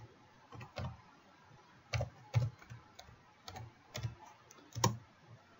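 Computer keyboard being typed on slowly: about eight separate keystrokes, unevenly spaced, with quiet between them.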